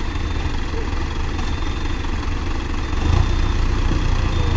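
Mahindra tractor's diesel engine running as the tractor creeps slowly over loose soil, getting louder about three seconds in.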